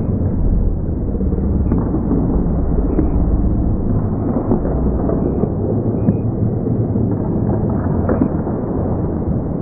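Ice hockey rink sound during play: a steady low rumble with a few sharp clacks of sticks and puck spread through it.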